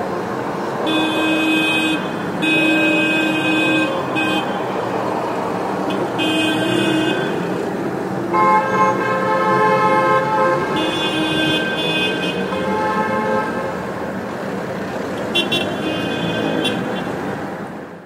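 Several car horns of different pitches honking over steady traffic noise in a traffic jam, in repeated blasts of one to two seconds, with the longest blast of about two and a half seconds in the middle. The sound fades out at the end.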